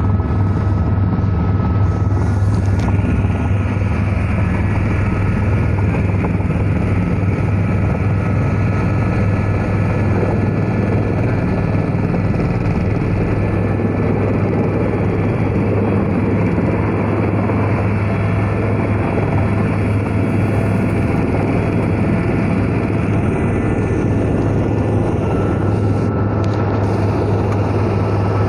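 Helicopter running steadily: a loud, unbroken rotor and engine drone with a strong low hum.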